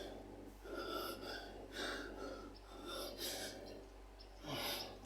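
A man breathing hard and unevenly, a breath about every second, agitated as if about to break down. A steady low electrical hum runs beneath.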